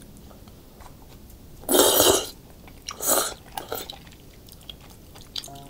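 A person eating spicy cheese tteokbokki with chopsticks: two loud slurps, about two and three seconds in, with quieter chewing and mouth sounds between.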